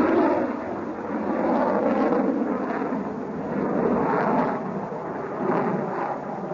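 Su-27 jet fighter flying overhead: a continuous jet rumble that swells and eases every second or two.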